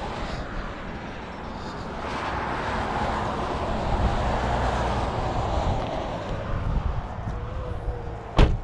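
Wind buffeting the microphone in gusts, a rough, rumbling rush that swells and eases, with one sharp bang near the end.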